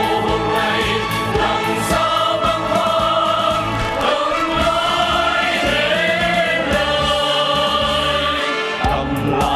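Mixed ensemble of women's and men's voices singing together as a choir, holding long notes over instrumental accompaniment.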